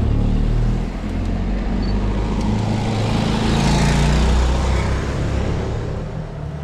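Cars driving past close by: a low engine rumble throughout, with engine and tyre noise swelling to a peak a little after the middle and easing off toward the end.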